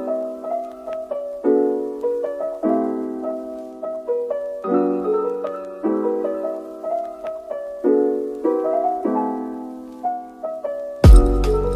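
Background piano music: slow chords struck every second or so, each fading away. Near the end a sudden loud burst of sound with heavy bass cuts in.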